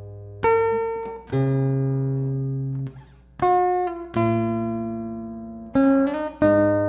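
Acoustic guitar fingerpicked in a slow, gentle tune: about six plucked chords, each left to ring and fade before the next.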